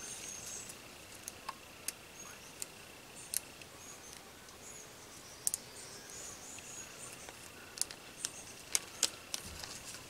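Faint, scattered clicks and crinkles of a small plastic bag of replacement screws being handled and opened by hand.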